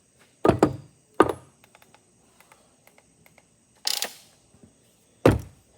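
A few sharp knocks and clunks of objects being handled and set down: a double clunk, another soon after, a brief scraping rattle about four seconds in, and a hard knock near the end, with light clicks between.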